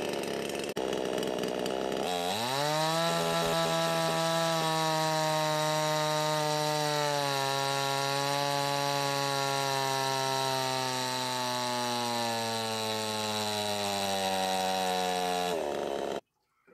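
VEHPRO 5200, a cheap 50cc two-stroke chainsaw, running at full throttle on a chainsaw dyno. About two seconds in its engine note climbs quickly and holds high. It then drops a step and sinks steadily as it pulls against the dyno's load, and cuts off abruptly near the end.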